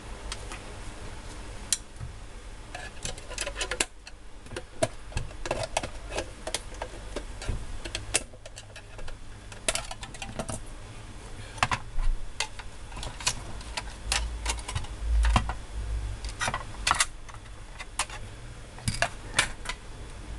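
Irregular plastic clicks and snaps as the plastic housing of a MikroTik SXT Lite 5 outdoor wireless unit is pried apart with a pry tool and its circuit board is handled, some clicks coming in quick clusters. A dull bump of handling about three quarters of the way through.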